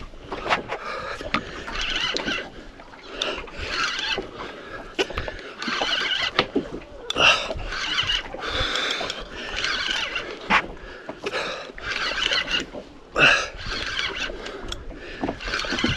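An angler breathing hard and grunting while winding in a strong-fighting reef fish on rod and reel, with sharp clicks from the reel and tackle.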